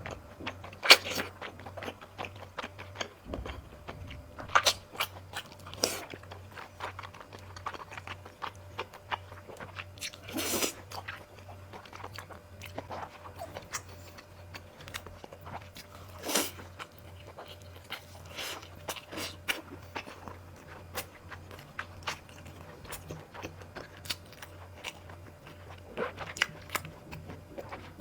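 Close-miked eating: biting and chewing with sharp wet mouth smacks at irregular intervals, a few seconds apart, over a steady low hum.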